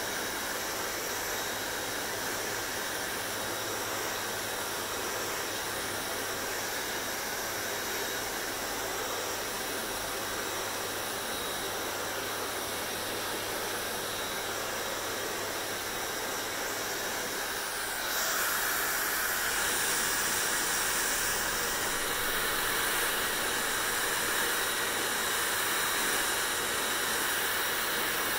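Hair dryer running with a steady blowing rush and a faint motor whine. About two-thirds of the way through it becomes a little louder and brighter, and stays that way.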